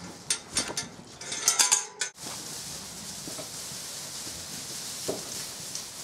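Galvanised steel gate and hurdles clanking and rattling as the gate is swung open, with a loud cluster of ringing metal clangs about a second and a half in. The sound cuts off sharply at about two seconds, and a steady soft rustle follows as lambs move about in deep straw.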